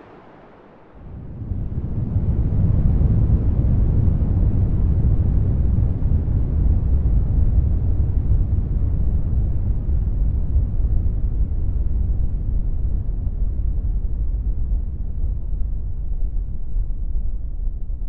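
A deep, steady rumble added as a sound effect. It swells in about a second in and slowly thins towards the end.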